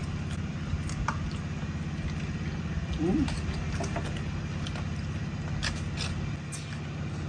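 A steady low engine-like hum, with a few light clicks and a brief voice sound about three seconds in.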